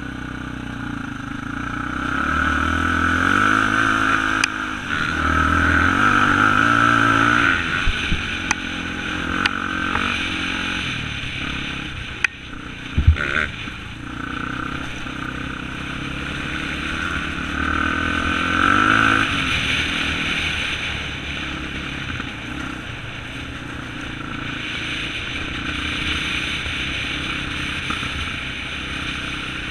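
ATV engine being ridden, revving up and easing off several times. A few sharp knocks and clatters come about a third of the way through, the loudest near the middle.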